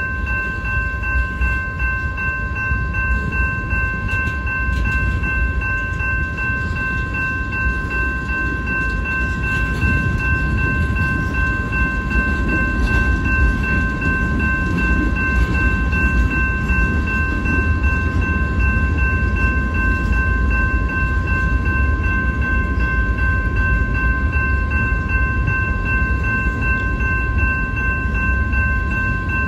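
Freight train of tank cars and gondolas rolling past, a steady low rumble of wheels on rail, with a steady high ringing tone heard over it throughout.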